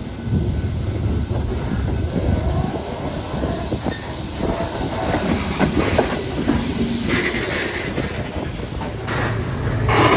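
Freight train loaded with stone rolling past on the rail line: a steady low rumble with wheels clacking over rail joints and some brief wheel squeal.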